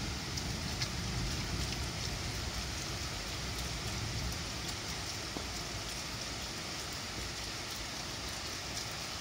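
Summer rain falling: a steady hiss with scattered drops ticking, over a low rumble that eases slightly in the first few seconds.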